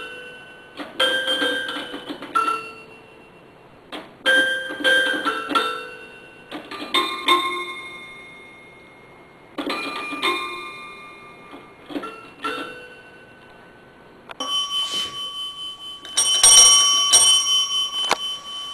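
A cat pawing the keys of a toy piano, plunking short clusters of ringing notes with pauses between them. About three-quarters of the way through the sound changes to repeated strikes on a desk bell, whose bright ringing tones hold on and are loudest near the end.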